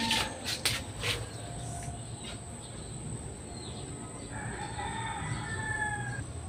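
A rooster crowing: one long crow starting about four seconds in, with a few light clicks in the first second.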